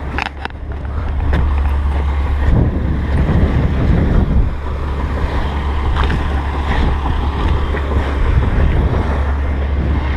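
Wind buffeting the microphone outdoors, a loud steady low rumble, with a few sharp knocks just after the start.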